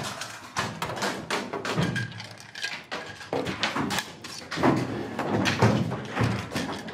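Several people field-stripping assault rifles and pistols against the clock: a fast, irregular run of metallic clicks, clacks and knocks as parts are pulled apart and set down on desks.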